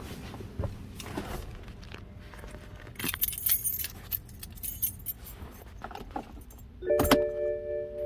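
Metallic jangling and rattling about three seconds in, as metal parts are handled. Near the end comes a thump, followed by a steady ringing chime-like tone of several pitches that keeps going.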